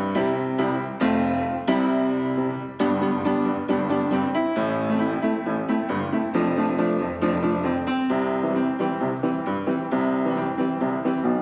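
Background piano music: a continuous run of keyboard notes and chords at a steady level.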